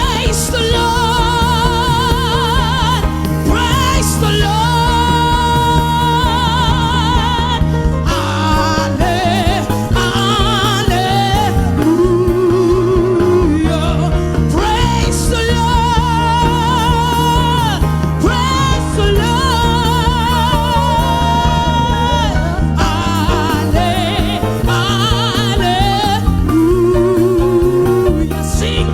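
Gospel worship music: a voice sings long, wavering held notes over a steady band accompaniment.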